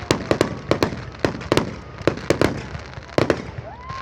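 Fireworks going off in quick succession: a rapid run of sharp bangs and pops, with a short rising whistle near the end.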